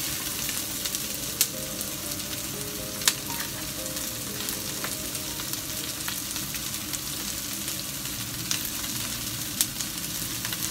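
Diced onion and garlic sizzling steadily in hot olive oil in a nonstick frying pan, with a few sharp clicks along the way.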